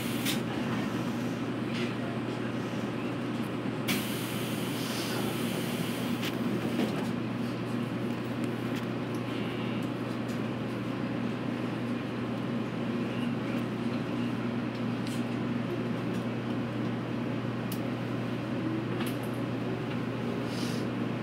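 Steady running noise and hum inside a JR Kyushu 811 series electric train's carriage, with a few brief knocks, the clearest about 4 seconds in.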